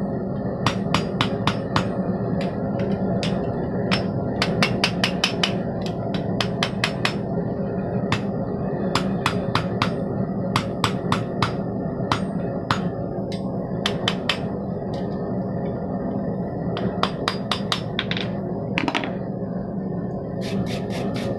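Hand hammer striking hot steel on an anvil in quick runs of blows, several a second, with short pauses between runs, forging a bar end into a ball. A steady low hum runs underneath.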